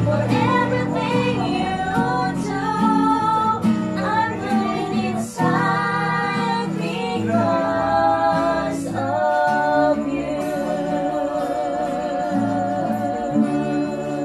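Women singing a song to two acoustic guitars. The singing ends on a long held note with vibrato over the last few seconds.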